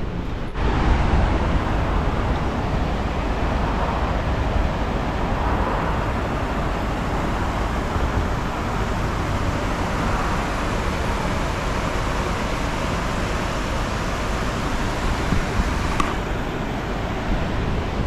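Steady rushing roar of the swollen River Thames pouring over a weir, with wind buffeting the microphone.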